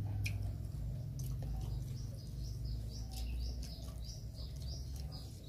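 A small bird chirping in a quick series of short, high notes, mostly in the second half, over a low steady background rumble, with a few faint clicks.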